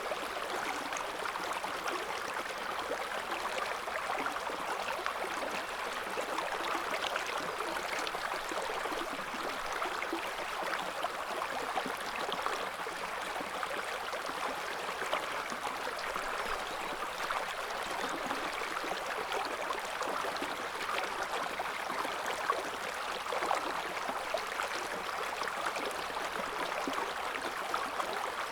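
Shallow river current flowing steadily, a continuous gurgling and splashing of water over stones.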